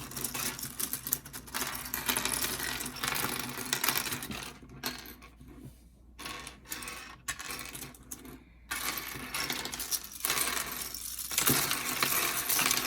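Loose plastic pieces of a disassembled 5x5 Rubik's cube clicking and clattering together as they are handled and sorted, with a quieter stretch about halfway through.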